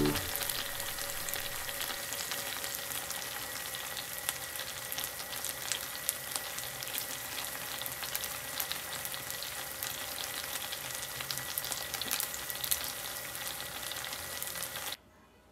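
Frozen gyoza frying in a pan: a steady crackling sizzle full of small pops, cutting off suddenly near the end.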